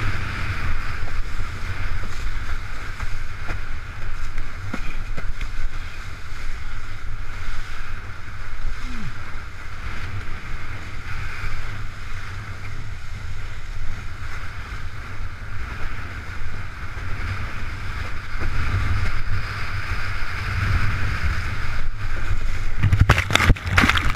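Strong wind buffeting the microphone over a steady hiss of water rushing past a windsurf board planing in choppy water, with a few sharp knocks near the end.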